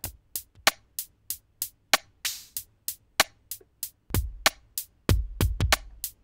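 Electronic drum pattern from a Eurorack modular synth, fed through the Mutant Hot Glue's analog compressor at a mix of dry and compressed signal. Short clicky hits about three a second, a hissing cymbal-like wash about two seconds in, and a deep kick drum coming back in about four seconds in.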